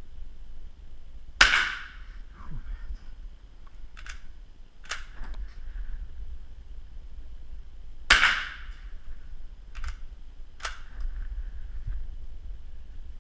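Two shots from a scoped rifle about seven seconds apart, each a sharp crack with a short echoing tail. A few seconds after each shot come two sharp clicks about a second apart.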